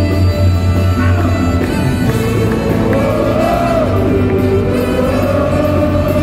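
Live rock band with a horn section playing loudly over a concert PA, under heavy steady bass. About two seconds in, a wavering held melodic line rises above the band.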